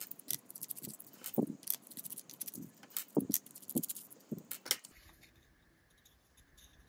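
Precision screwdriver working the small screws out of a compact camera's housing, with sharp light clicks and metallic ticks of the tool, the screws and the plastic case. The clicking stops about five seconds in.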